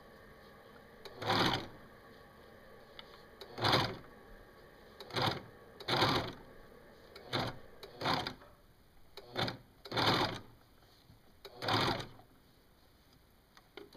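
Pfaff Hobbylock serger running in about nine short, stop-start spurts as it stitches and trims the edge of thick cotton prefold fabric with its cutting knife engaged, the operator stopping between spurts to guide the fabric around a curve.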